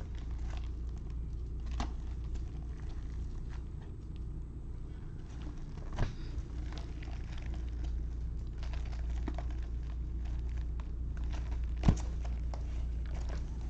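Sealed boxes of baseball cards being handled: faint rustling and light taps, with two sharper taps about six and twelve seconds in, over a steady low hum.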